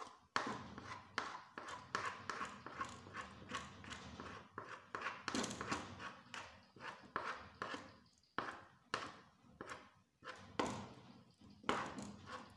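Wooden stirring stick knocking and scraping against an aluminium pot as thick amala paste made from yam flour (elubo) is turned, in uneven knocks about two or three a second.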